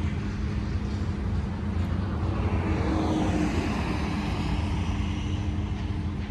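BNSF diesel locomotives of a double-stack container train on the move, a steady deep rumble with a low engine hum, swelling slightly about halfway through.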